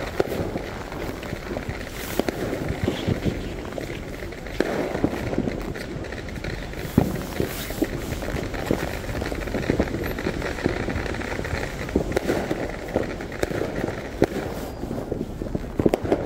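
Fireworks crackling and popping in a dense, continuous run, with one sharper bang about seven seconds in.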